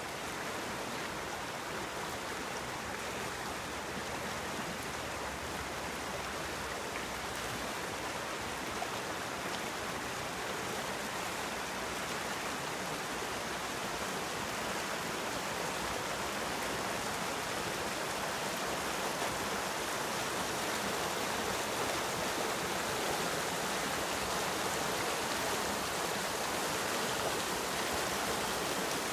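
A brook rushing over rocks and through small rapids: steady, full white-water noise that grows slightly louder toward the end.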